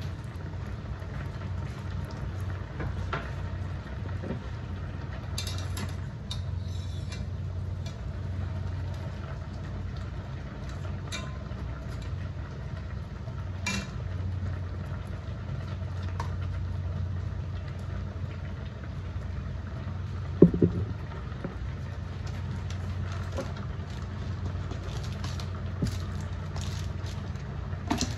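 Water at a rolling boil in a stainless steel stockpot, a steady low bubbling rumble. A wire spider strainer clicks against the pot now and then, with one louder ringing metal knock about twenty seconds in.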